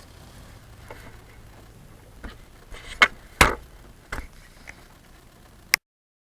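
Handling noise picked up by an Emerson HD 720p camcorder's built-in microphone: several scattered knocks and clicks, the loudest about three and a half seconds in. Near the end a sharp click, the camcorder's record button being pressed, and the sound cuts off suddenly as the recording stops.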